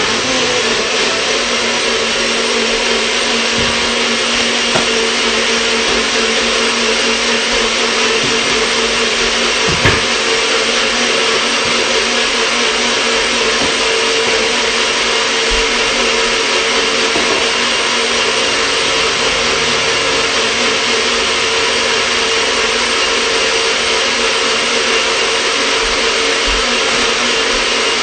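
NutriBullet blender motor running steadily at full speed, blending a thick green smoothie mix. It starts abruptly and keeps an even, loud whir with a steady hum throughout.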